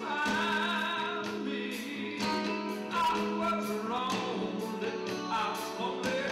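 Live band music: a singer holding a wavering, vibrato melody over guitars, with a steady beat of sharp percussive strokes.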